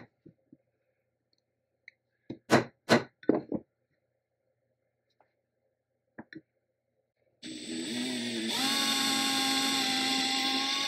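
Several sharp metal taps on a cast iron vise body, clustered between two and four seconds in and a pair just after six seconds. About seven seconds in, an electric drill starts, steps up in speed a second later, and runs steadily as its bit bores into the cast iron.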